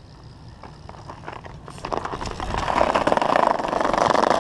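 BMX bike rolling on concrete close by: tyre noise mixed with a rapid rattle of clicks, growing louder from about two seconds in.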